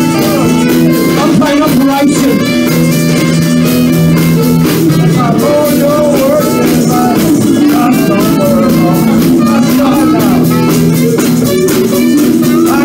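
Live blues band playing: electric guitars, saxophone, bass guitar and drum kit, with long held notes over a steady drumbeat.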